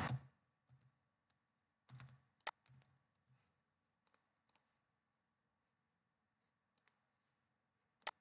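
Near silence, broken by a few faint computer clicks from a mouse or keyboard. The clearest come about two and a half seconds in and near the end.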